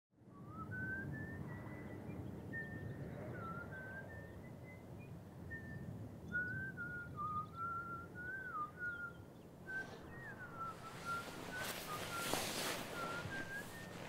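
A person whistling a slow, wandering tune in single held notes with small slides between them. From about ten seconds in, short scuffing or rustling noises join it.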